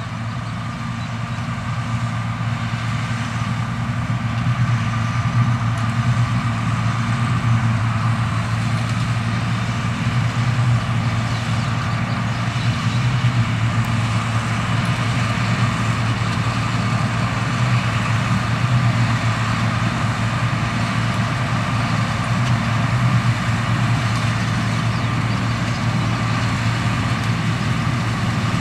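John Deere 7720 Turbo combine's 7.6-litre six-cylinder diesel running steadily as the machine harvests wheat. It grows a little louder over the first few seconds, then holds level.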